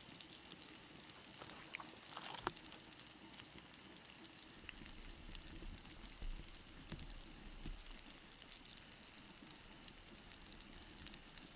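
Northern pike fillets frying in hot oil in a pan: a faint, steady sizzle with a few small pops.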